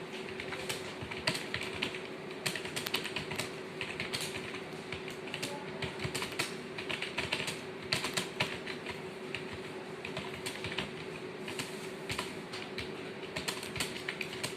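Fast, irregular key clicks of someone typing on a computer keyboard, over a steady hum.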